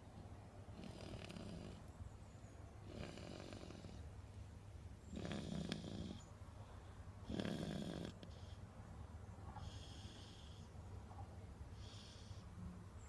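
Snoring: a slow series of about six snores, roughly one every two seconds, the two in the middle the loudest.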